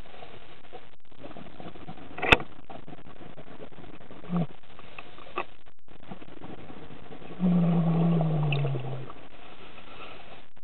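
Underwater sound through a dive camera: a steady rumble, a single sharp click about two seconds in, and, about seven seconds in, a louder sound lasting a second or so with a low tone that falls in pitch.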